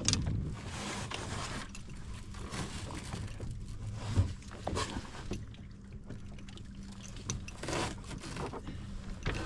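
Water splashing around a small boat, with a few sharp knocks and clatter aboard over a steady low hum.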